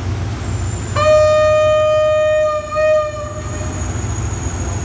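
Diesel locomotive air horn: one long blast of about a second and a half, then a short second toot, over the steady low rumble of the train's diesel engine.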